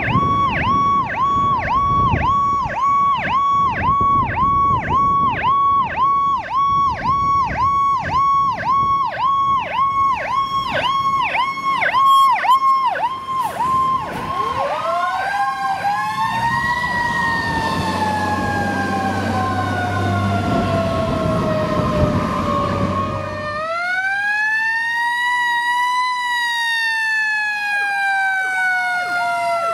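Fire truck siren in a fast yelp, its pitch cycling about two to three times a second, over the rumble of the truck's engine. About halfway through it switches to a slow wail, rising and then falling. After a cut, a second siren wail rises and falls.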